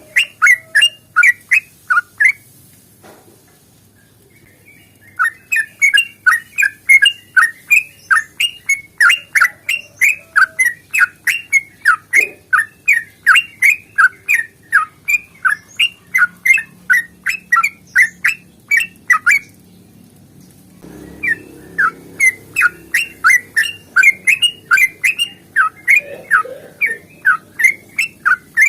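Yellow-vented bulbul (trucukan) singing long rapid runs of loud chirps, about three a second, in three bouts with pauses of a couple of seconds between them: the 'ropel panjang' fighting song used as a lure to make other bulbuls sing.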